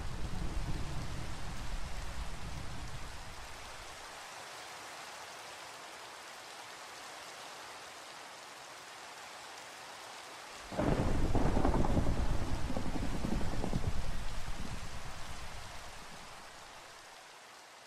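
Rain falling steadily with thunder: a rumble of thunder dies away over the first few seconds, then after a stretch of plain rain a sudden loud thunderclap comes about eleven seconds in and rolls on for several seconds before fading out with the rain near the end.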